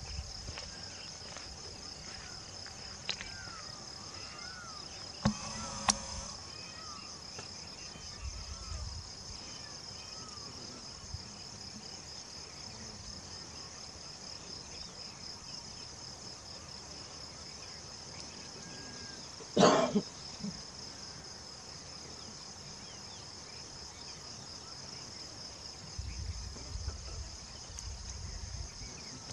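Night insects, crickets, trilling in a steady high-pitched chorus with a fast pulse. A single brief loud sound cuts in about two-thirds of the way through.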